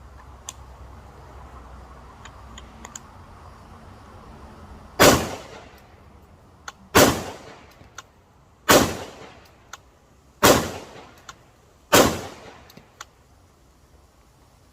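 Five rifle shots from a Palmetto State Armory AR fitted with a Strike Industries J-Comp muzzle compensator, fired one at a time about every one and a half to two seconds, starting about five seconds in. Each shot is a sharp, really loud crack with a ringing tail that dies away over about half a second.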